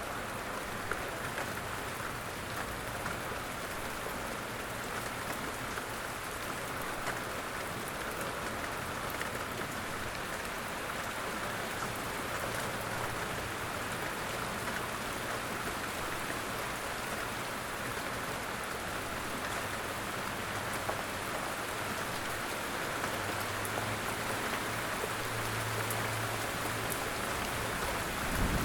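Light rain falling steadily, with many individual drops ticking.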